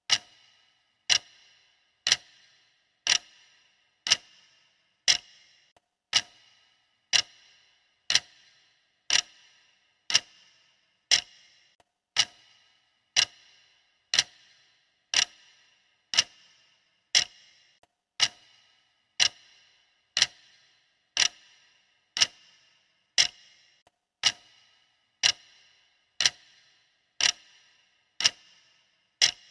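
Clock ticking sound effect of a workout countdown timer: a steady, sharp tick once a second, each with a brief ring.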